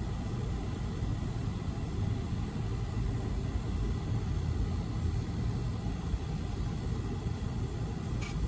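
Steady low rumble heard from inside an idling car's cabin as a Union Pacific autorack freight train rolls past at the grade crossing ahead.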